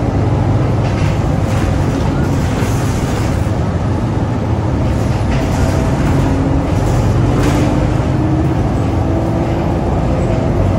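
Detroit Diesel Series 50 inline-four diesel of a 2004 NABI 40LFW transit bus running steadily under way, heard from inside the passenger cabin over tyre and road noise, with a faint whine that rises and falls in pitch.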